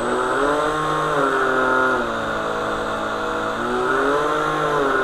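Electric motor and flex shaft of an RC hydroplane running out of the water on an 8S battery, during a throttle test. The whine climbs in pitch at the start, drops back about two seconds in, climbs again, and winds down near the end.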